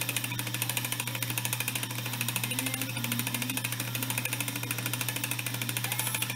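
Webster-Chicago 346 record changer running: a steady motor hum with a rapid, even mechanical ticking, about eight to ten a second, from its drive and trip mechanism.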